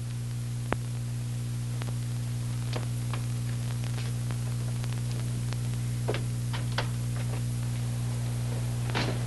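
Steady low hum and hiss from an old film soundtrack, with scattered faint clicks and crackles.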